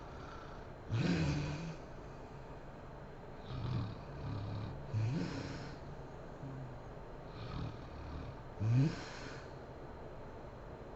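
A sleeping woman snoring, with about six irregular snores and snorting breaths. The loudest comes about nine seconds in and rises in pitch.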